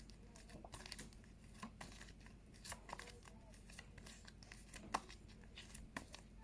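Near-silent room with faint, scattered rustles and clicks of paper word cards being handled and flipped, one a little louder about five seconds in.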